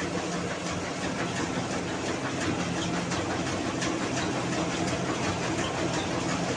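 Mini rice mill running steadily while paddy is fed into its hopper: a constant machine drone with a low hum and scattered short ticks over it.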